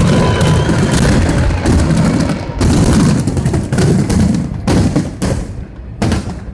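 Aerial fireworks going off in rapid, overlapping bangs and booms over a low rumble, thinning to a few separate bangs near the end.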